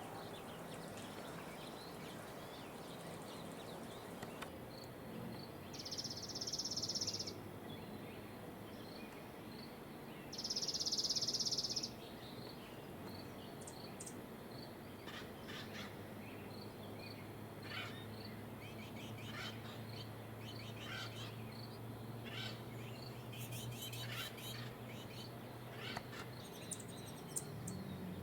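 Dark-eyed junco singing: two loud, even trills of rapid repeated notes, about six and ten seconds in, each a little over a second long. Scattered short high chirps from small birds follow later, over a steady low background hum.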